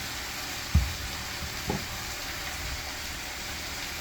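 Food sizzling steadily in a frying pan, an even hiss, with a soft low knock about a second in.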